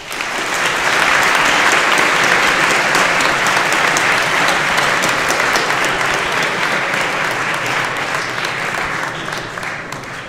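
A large audience of high school students applauding, the clapping rising sharply at once and slowly dying away near the end.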